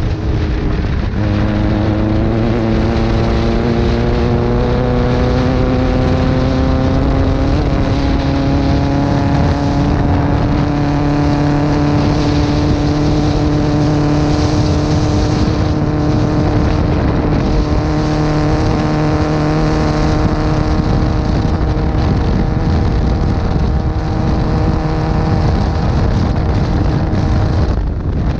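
Off-road buggy's engine running hard at speed: it revs up about a second in, the pitch climbing slowly, then holds a high, steady note under a rushing noise.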